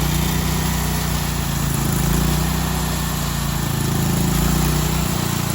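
An engine running steadily at an even speed, its level swelling and easing slightly.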